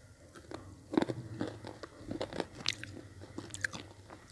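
Red slate-pencil blocks being bitten and crunched between the teeth, close to an earphone microphone held at the mouth: a loud bite about a second in, then a run of sharp crackling crunches as the pieces are chewed.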